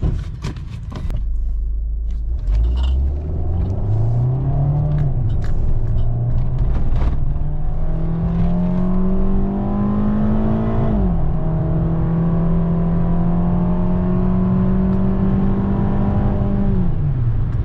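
A 2013 Fiat 500's 1.4-litre four-cylinder engine accelerating hard through the gears from low speed. Its note climbs, drops sharply at two upshifts, then holds steady at speed before falling off as the throttle is lifted near the end.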